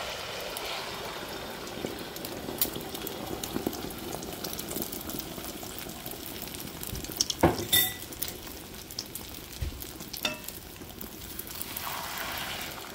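Beaten eggs frying in hot oil in a stainless steel skillet, a steady sizzle. A couple of sharp knocks about halfway through, and a wooden spatula working the eggs in the pan near the end.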